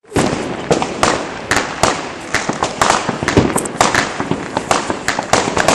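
Fireworks battery (cake) firing: a run of sharp bangs, about three a second, over a continuous crackle.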